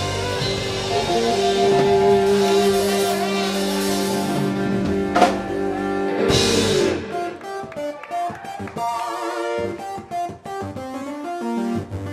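Live rock band playing: electric guitar, bass guitar and drum kit together, with a sharp hit about five seconds in. About seven seconds in the band drops to a sparser, quieter, choppy groove.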